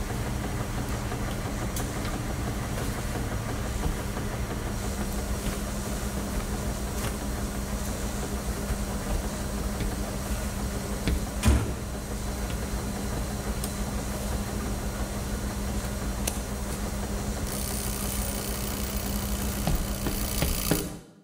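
Steady mechanical hum of rows of laundromat washing machines running, with scattered light clicks and one sharp knock about halfway through. A hiss joins in near the end, and the sound cuts off abruptly.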